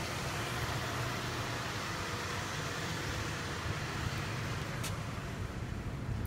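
Mitsubishi Pajero's 3.0-litre V6 idling steadily, with one brief click about five seconds in.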